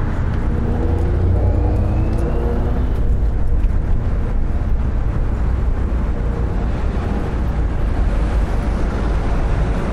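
City road traffic: a steady, heavy low rumble of passing vehicles, with an engine's pitch rising over the first few seconds.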